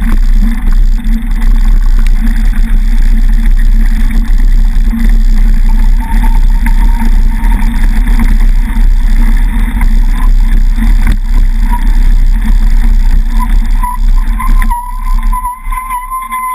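Heavy rumble and wind buffeting on a camera mounted low on a mountain bike riding a rough dirt track, loud throughout. Near the end the rumble drops away as the bike slows, leaving a thin steady whistle.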